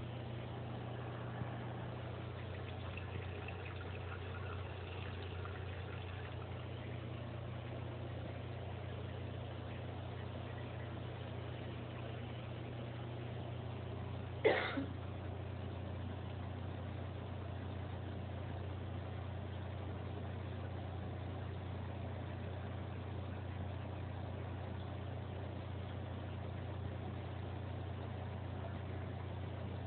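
Aquarium pump motor humming steadily, with one sharp knock about halfway through.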